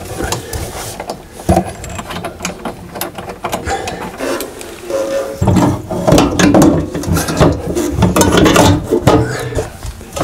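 Metal parts of a Vaillant gas boiler being handled: scattered small clicks and rattles, turning into denser, louder clattering about halfway through as the heat exchanger is lifted and fitted back into the casing.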